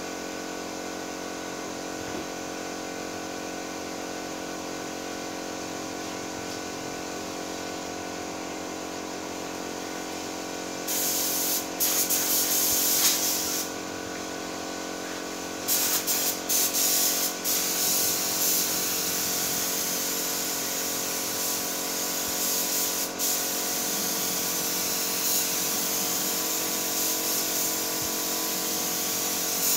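Compressed-air paint spray gun hissing as paint is sprayed onto a car body, first in two short bursts about eleven and sixteen seconds in, then almost without a break. Under it runs a steady machine hum.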